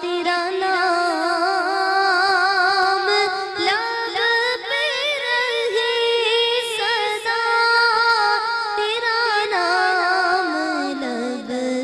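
A woman singing a slow devotional hamd in long, drawn-out wavering notes, her pitch stepping down near the end.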